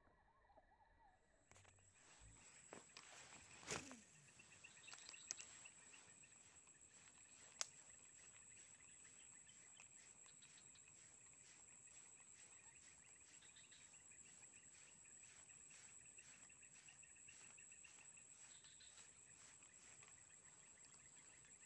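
Faint insect chorus: a steady high-pitched whine and fast, even chirping that start about a second in, with a few scattered sharp clicks in the first eight seconds.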